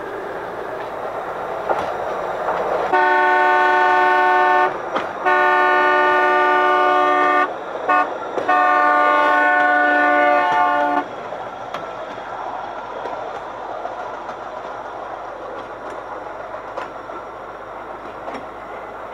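Hy-rail 1956 Pontiac station wagon running on steel rails, then sounding its horn, a chord of several tones, in the grade-crossing pattern of long, long, short, long. The last blast cuts off sharply, and the rolling rail noise continues.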